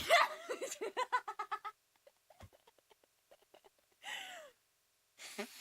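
A young woman giggling in a quick run of short, high laughs for about a second and a half, followed by soft breathy sounds and a breathy sigh about four seconds in.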